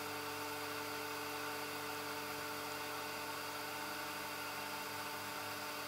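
Vacuum pump running steadily, pulling down a vacuum-press bag to glue veneer onto a plywood door panel: an even whir and hiss.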